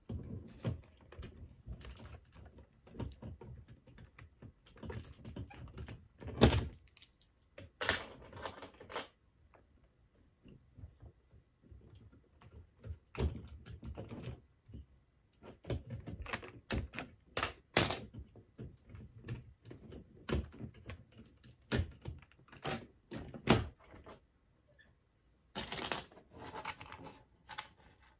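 LEGO bricks being handled and pressed together: irregular plastic clicks and knocks, with a couple of short pauses.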